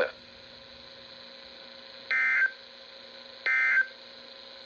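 Emergency Alert System digital data bursts: two short, high-pitched buzzing bursts of the SAME code, about a second and a half apart, over a steady low hum. Coming right after the spoken warning ends, they are the end-of-message code that closes a severe thunderstorm warning broadcast.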